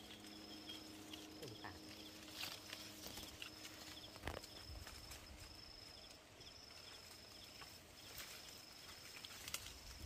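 Faint animal call: a high-pitched note repeating in long even pulses with short gaps, over a few light clicks.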